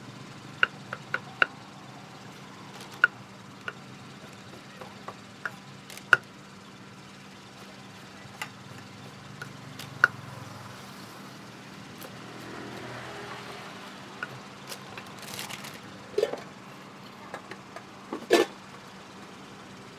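Scattered sharp clicks and knocks of utensils and containers being handled at a food stall, with plastic bags crinkling about three-quarters of the way through, over a steady low hum.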